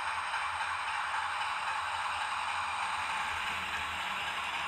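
Hornby OO gauge Class 60 model locomotive running with its TTS sound decoder on: a steady, hissy diesel engine sound from the model's small onboard speaker, imitating the Mirrlees power unit, mixed with the model's running noise on the track.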